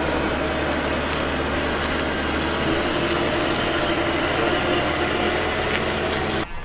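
Boat-lifting crane's motor running steadily while it holds a sailboat up in its straps: a constant low hum with mechanical noise over it, cutting off just before the end.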